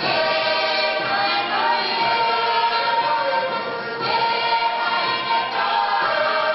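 A large group singing a Cook Islands kapa rima (action song) together in harmony. A new, louder phrase comes in at the start and another about four seconds in.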